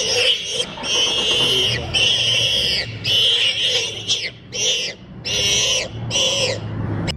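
A warthog, seized and held down by lions, gives a series of long, high-pitched distress squeals, about one a second.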